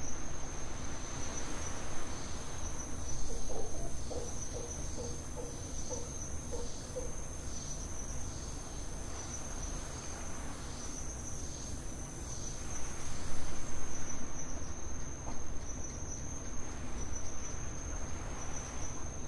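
Insects trilling in a steady high-pitched chorus, with a short run of evenly spaced low calls from another animal a few seconds in.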